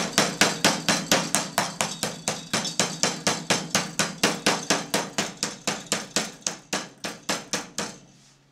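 Wooden meat mallet rapidly pounding a chicken thigh flat on a cutting board, an even run of soft blows about five a second. The blows stop just before the end.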